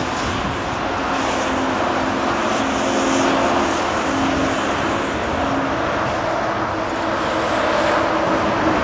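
Large Caterpillar Next Generation hydraulic excavator's diesel engine and hydraulics running steadily with a low hum while it swings its empty bucket, over a constant noise of motorway traffic.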